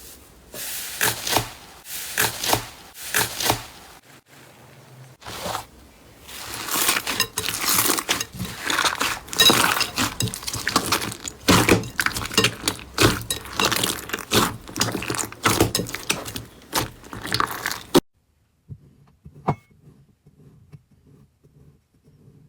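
Slime being squeezed and pressed by hand, a dense run of crackling and popping clicks. It cuts off abruptly about 18 seconds in, leaving only faint soft squishing.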